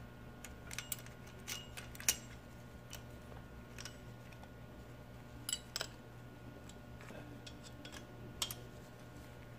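A handful of faint, irregular metallic clicks and clinks of open-end wrenches working an adjustable pushrod and its lock nut, over a low steady hum.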